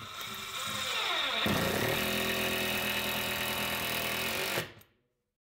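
Makita TD110 10.8 V cordless impact driver driving a long screw into wood. Its motor slows as the screw bites, then from about a second and a half in it runs louder and steadily with its impact mechanism hammering, and it stops abruptly once the screw is seated.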